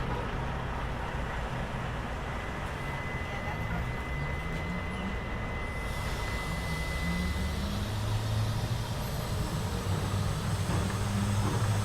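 Street traffic dominated by a heavy vehicle's engine running low, its pitch rising and falling as it works. A faint steady high whine sounds for a few seconds in the middle.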